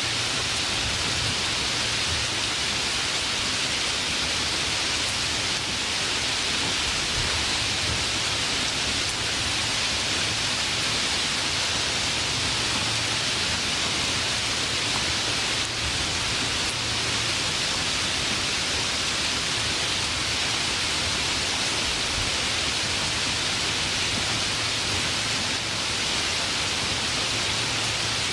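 Steady rain falling, an even hiss without thunder.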